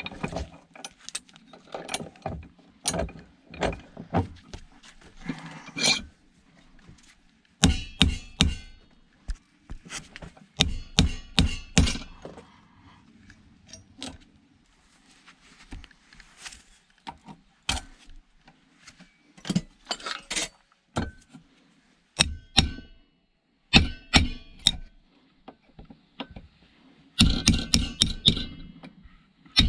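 Metal parts being knocked, pried and worked loose with hand tools while a scrap item is dismantled. The clinks and knocks are irregular and come in several quick clusters, with quiet gaps between.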